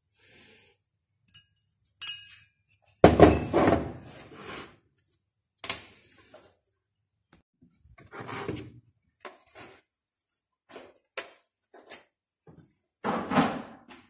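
Metal tools and small engine parts clinking and clattering in irregular knocks and short rattles, the loudest about three seconds in and again near the end, as a brush cutter engine is taken apart.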